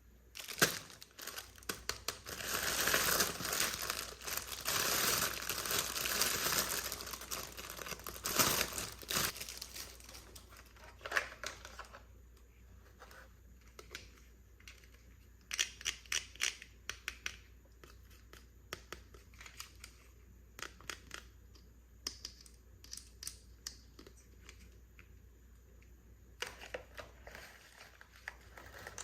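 Toy packaging being crinkled and torn open for several seconds, loudest at the start. After that come scattered small clicks and taps, with a brief crinkle near the end.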